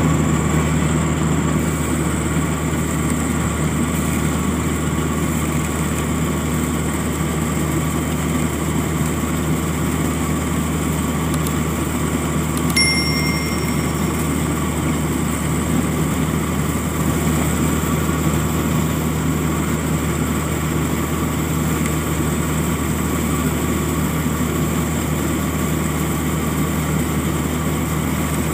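Rice combine harvester running steadily while cutting standing rice: a constant engine and threshing-machinery drone with a steady high whine. A brief high-pitched ring sounds about halfway through.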